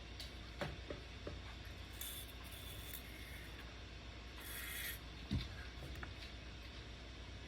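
Small handling noises while the inside of an AR pistol is lubricated: a few light clicks, short hissing rubs, and one dull knock a little past halfway.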